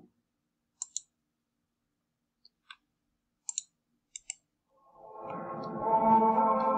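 A few short computer mouse clicks. Then, from about five seconds in, a man's voice calling out in the Pisa Baptistery swells into a sustained, ringing chord of several overlapping tones: the building's long reverberation (galm).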